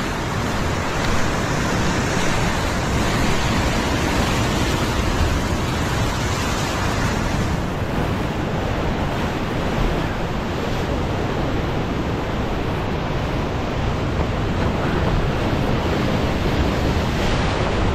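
Ocean surf breaking and washing through boulders at the foot of a rock ledge, a continuous rushing wash, with wind on the microphone adding a low rumble.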